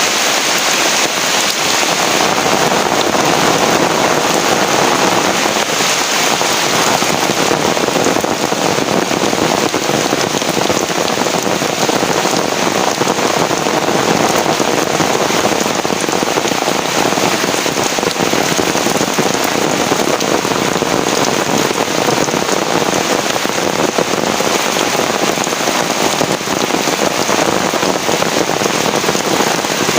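Heavy rain falling steadily: a dense, even hiss of drops that holds the same level throughout.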